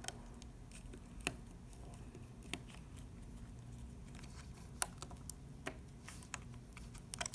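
Scattered faint clicks and taps of a small screwdriver and loose parts being handled on a partly disassembled smartphone, about six separate ticks over several seconds.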